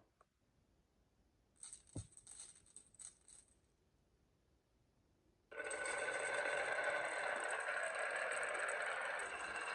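Marbles on a marble-run track: a few light clicks and one knock, then about halfway through a sudden steady, dense rattling as they roll and clatter along the track.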